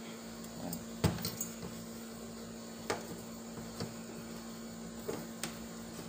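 Handling noise on a workbench: a few short light knocks and clicks as a multimeter and small parts are picked up and set down, the loudest about a second in, over a steady low hum.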